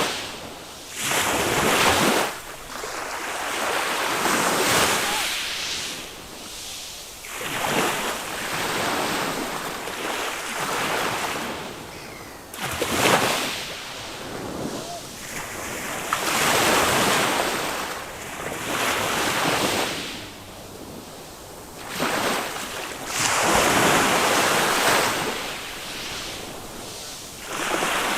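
Small waves of a calm Mediterranean sea breaking and washing up a sand beach. Each wave arrives as a swell of hiss every two to three seconds, with a sharper break about 13 seconds in, and there is some wind on the microphone.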